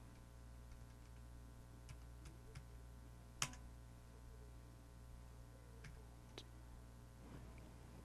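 Faint, sparse clicks of computer keys, about six spread out, the sharpest about three and a half seconds in, over a low steady electrical hum.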